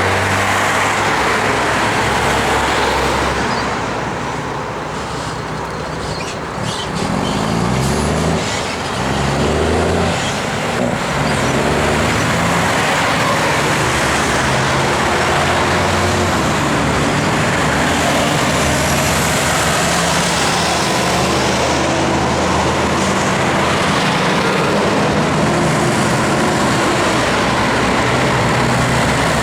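Busy road traffic passing, with the engines of heavy vehicles. Between about seven and eleven seconds in, one engine's pitch climbs in steps as it accelerates through its gears.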